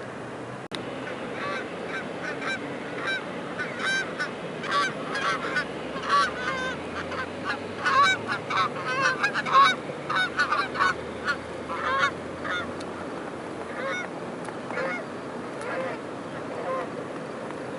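A flock of geese honking, many calls overlapping, thickest in the middle and thinning out towards the end, over a steady background hiss.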